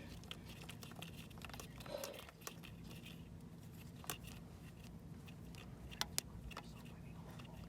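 Faint scattered clicks and light metal handling sounds as a new injection control pressure (ICP) sensor is fitted and threaded into an International T444E diesel engine, over a steady low hum. A few sharper clicks stand out about four and six seconds in.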